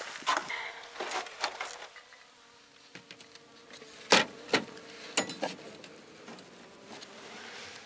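Honeybees humming steadily from an opened winter hive, with several sharp knocks and clunks as the wooden hive parts and queen excluder are handled, the loudest about four seconds in.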